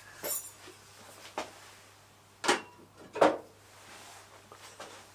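A work rest being pulled out of a knife maker's grinder: a few separate knocks and clunks, the loudest two about half-way through.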